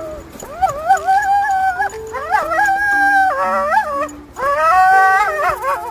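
A dog howling: three long howls, each wavering up and down in pitch.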